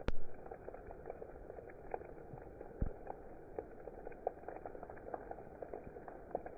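Steady rain falling, with many small drops ticking irregularly over a constant hiss. A sharp click comes just after the start and a single low thud about three seconds in.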